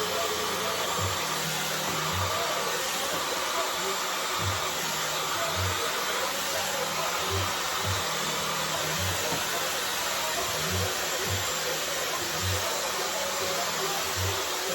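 Dyson Supersonic hair dryer blowing steadily through its diffuser attachment, a constant airy rush with a low motor hum underneath.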